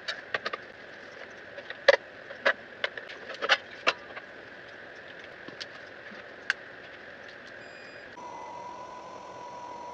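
Sharp clicks and light metallic taps of tools and small parts being handled while a Focusrite Saffire Pro 24 audio interface is opened, most of them in the first four seconds. About eight seconds in, a steady hum with a faint tone takes over.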